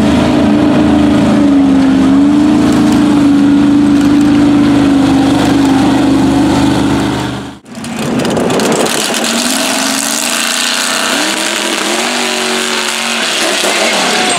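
Mud racing truck's engine held at high revs as it runs through the mud pit, a loud steady drone. About halfway through the sound drops out briefly at a cut, and another mud racer's engine follows, quieter, revving up in rising pulls near the end.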